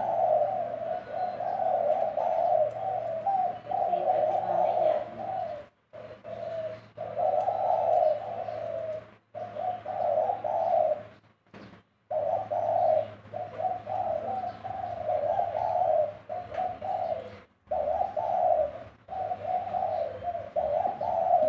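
Spotted dove cooing over and over in phrases, with brief pauses between them, in a mid-pitched voice.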